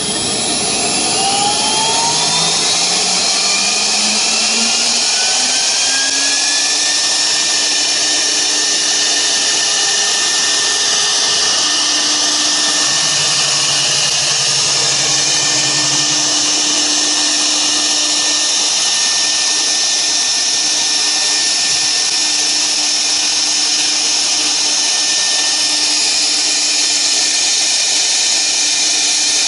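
CNC router spindle motor spinning up with a rising whine over the first several seconds, then running at a steady high speed, with a lower tone coming and going.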